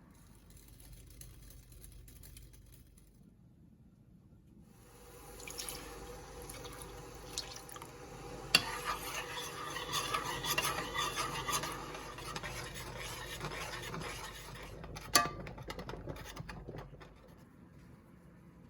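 Cookware being handled and stirred: a utensil scraping and rubbing in a pot for several seconds, with a few sharp clinks, two of them loud.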